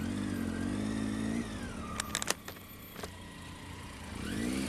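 Motorcycle engine running at low speed in slow traffic, its pitch rising and falling with the throttle, with a quick cluster of sharp clicks about two seconds in.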